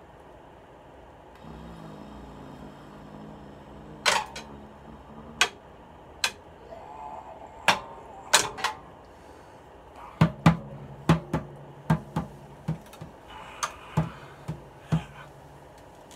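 Acoustic drum kit struck with sticks: over a dozen loose, irregular hits on drums and cymbals, not a steady beat, with a low ringing tone under them.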